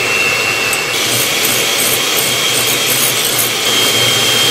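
Electric hand mixer beating egg whites in a glass bowl, running steadily with a high motor whine that steps up in pitch about a second in. The whites are being whipped toward stiff peaks.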